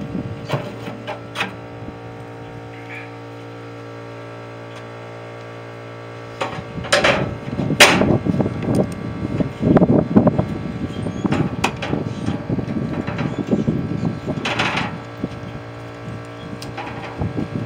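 Metal clattering, knocking and scraping, starting about six seconds in and going on for about eight seconds, over a steady low hum.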